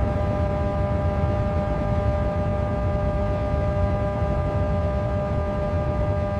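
Steady mechanical drone: a low rumble with several held high tones over it, unchanging throughout.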